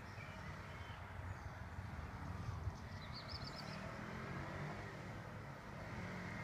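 Motorcycle engine approaching from a distance, a low hum that grows louder near the end. A bird chirps briefly about three seconds in.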